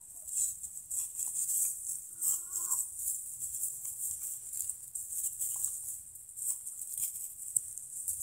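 Hens foraging close by: rustling and pecking in the grass over a steady high hiss, with a short low cluck about two and a half seconds in and a few faint clucks elsewhere.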